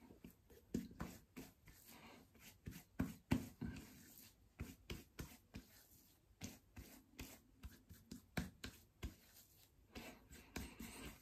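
Hands rubbing and patting over a bearded face and moustache: faint, irregular short brushing strokes, some louder than others.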